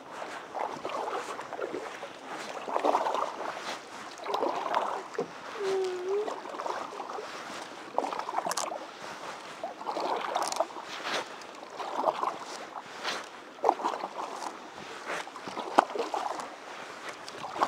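Double-bladed canoe paddles dipping and pulling through lake water, a splash and trickle with each stroke about every one to two seconds, with a few sharp knocks in between.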